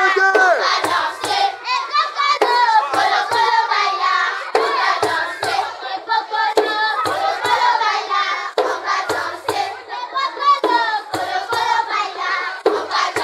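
A group of children singing a traditional Congolese folk song together, over a hand drum struck in a steady pattern of paired beats about once a second.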